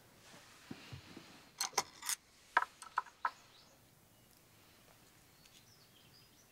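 Light clicks and clinks of wooden chopsticks against ceramic bowls at a meal: a quick cluster of three, then three more ringing clinks about a third of a second apart, bunched between about one and a half and three and a half seconds in.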